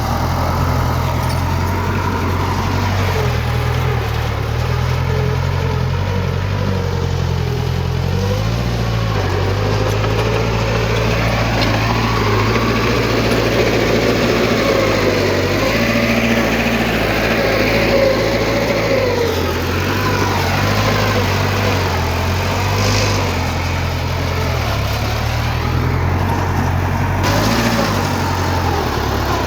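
Heavy diesel earthmoving machinery running steadily, its engine note rising and falling under load partway through.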